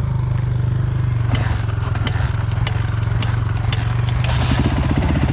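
Dirt bike engine running steadily on a trail ride, with scattered sharp clicks and scrapes through the middle, like stones and gravel hitting the bike.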